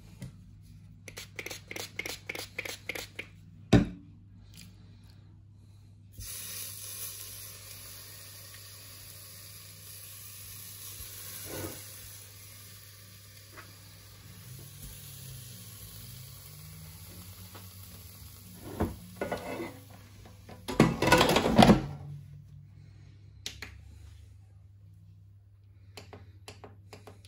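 Kitchen handling sounds: a quick run of sharp taps, then one loud knock, followed by a long steady hiss and, about 21 seconds in, a loud clatter of cookware. Faint clicks near the end.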